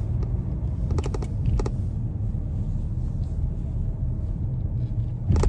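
Low road and engine rumble inside a moving car, with short bursts of rapid clicking rattle from a loose camera mount about a second in and again near the end.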